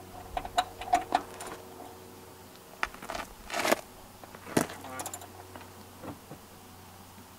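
Socket wrench on a Jeep's oil pan drain plug as it is worked loose: scattered metallic clicks and clinks, most of them around the middle.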